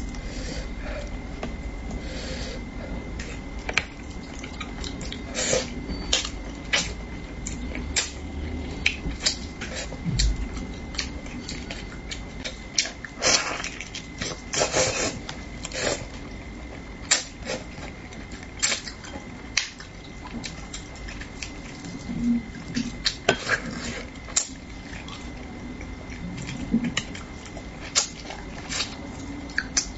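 Close-miked eating of spicy braised fish: wet sucking, slurping and chewing as meat is pulled off the bones, in irregular sharp smacks, with the longest run of sucking about halfway through. Chopsticks clink now and then against a porcelain bowl.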